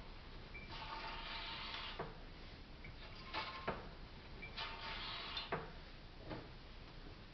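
Grinding from the front left corner of a 2008 Mazda CX-9 as the steering is turned left and right with the front wheels off. There are two stretches of grating noise, and about half a dozen sharp clicks and knocks are spread among them.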